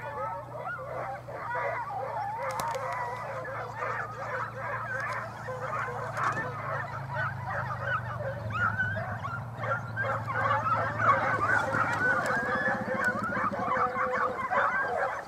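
A pack of foxhounds in full cry, many overlapping wavering yelps and bays, as they run on the line of a fox that has just passed. The cry grows louder in the second half.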